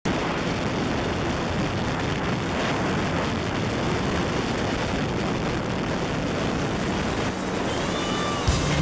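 Jet ski running at speed, its engine drone mixed with a steady rush of water and spray. There is a sharp thump near the end.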